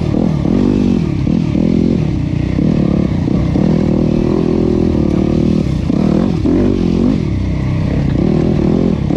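Motorcycle engine running under changing throttle, its pitch dipping and climbing again several times.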